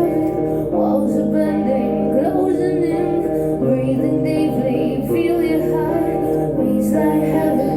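Live stripped-down band music with a woman singing over sustained guitar chords.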